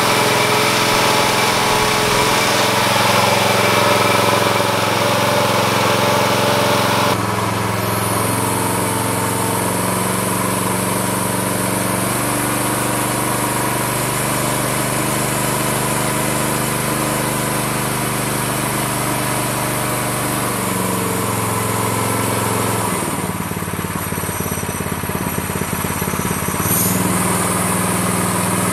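Predator 212 single-cylinder four-stroke engine running on a homemade hydraulic dyno, turning its gear pump at around 2,400–2,900 rpm. The engine speed steps down and up several times, dropping about two-thirds of the way through and picking up again near the end.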